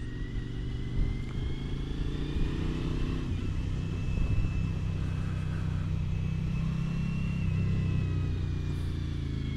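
Motorcycle engine running under way, with wind and road noise; its note falls over the first few seconds, then holds steady.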